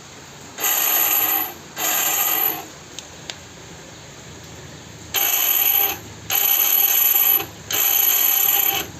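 Hero Passion Pro's electric starter motor spinning up in five short bursts of about a second each as the self-start button is pressed, with a very loud whirring noise. The noise comes from the starter motor itself, not the one-way clutch; the mechanic traces it to the motor's bearing, which needs replacing.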